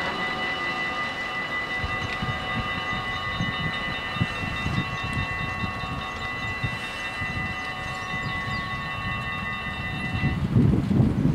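Electronic warning bells of a Dutch automatic half-barrier level crossing ringing steadily while the barriers rise to reopen the road. They stop about ten seconds in, after which wind buffets the microphone.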